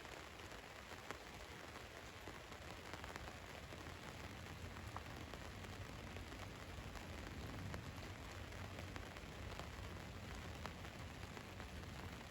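Rain falling steadily on a van's roof: an even hiss with scattered individual drop taps over a low rumble.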